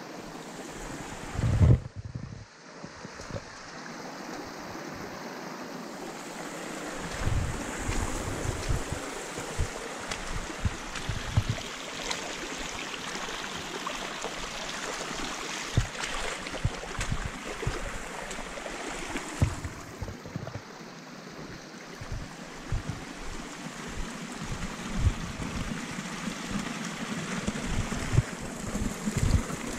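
Rainwater runoff rushing down a flooded trail over rocks and logs, a steady wash of water, with repeated low thumps; the loudest thump comes about two seconds in.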